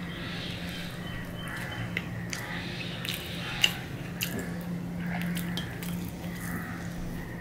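Close mouth sounds of a person chewing soft fried rice, with scattered small clicks and wet smacks as fingers mix the rice on a steel plate. A steady low hum runs underneath.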